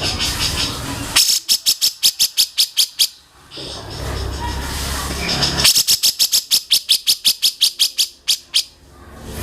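A songbird calling in two rapid runs of sharp, repeated notes, about seven a second: a short run starting about a second in, and a longer one in the second half, over a steady low hum.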